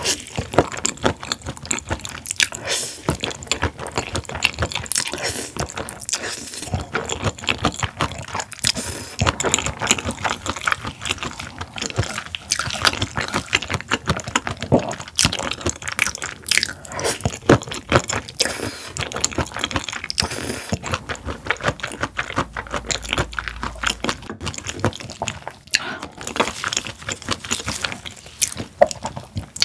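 Close-miked wet chewing and mouth sounds of a person eating sauce-coated noodles: a dense, irregular run of small sticky clicks.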